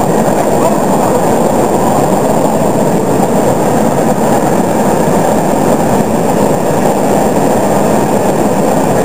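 Class 41 steam locomotive 41 360 moving slowly into the workshop: a steady, even noise with no separate beats.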